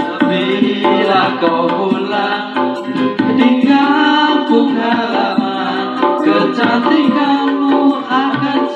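A song with singing and percussion played through a JIC 4-inch midrange speaker in a homemade wooden box, with little deep bass and weak treble: the mid-leaning sound of a mid speaker.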